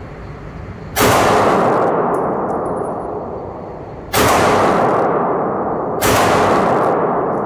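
Three 9mm shots from a 2011-pattern pistol, fired slowly and evenly about two to three seconds apart. Each shot rings out long in the indoor range.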